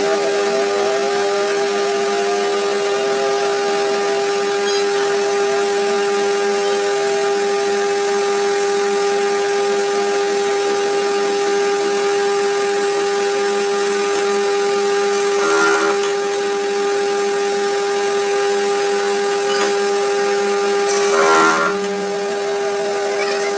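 Workshop machine tool running steadily with a constant motor hum, as in machining a shaft. There are two short, louder scraping noises, about 15 and 21 seconds in.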